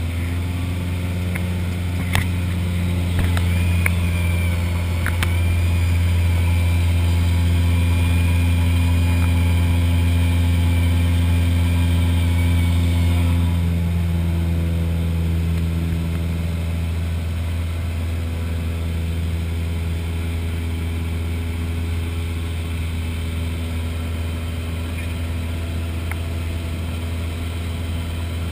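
Cessna 172's piston engine and propeller droning steadily in flight, heard inside the cabin. The drone is louder for the first half, then drops a little and evens out about halfway through.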